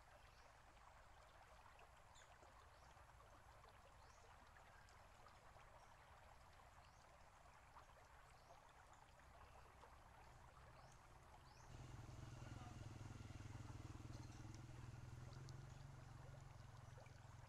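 Faint trickling and bubbling water from a bamboo garden spout and a stone basin fountain. About two-thirds of the way through it gives way to a low steady hum.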